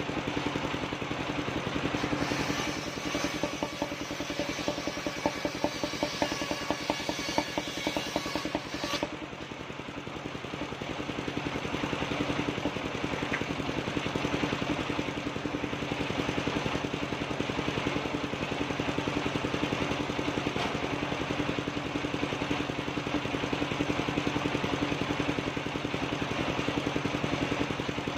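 Mobile circular sawmill running, its engine and large spinning blade steady throughout. For the first several seconds the blade is cutting through a wooden plank, with a hiss and a rapid ticking on top, and the cut ends abruptly about nine seconds in. After that the saw runs on unloaded.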